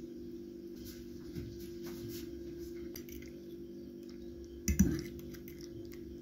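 Metal fork clinking against a plate of sauced meat and mushrooms: a few faint ticks, then one louder clatter nearly five seconds in.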